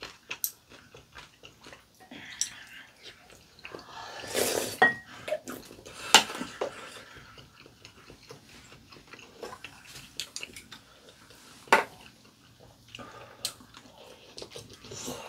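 Eating sounds at a table: a metal spoon and chopsticks clinking against ceramic soup bowls in a few sharp clinks, the loudest about six seconds in, with chewing and slurping of sujebi dough soup.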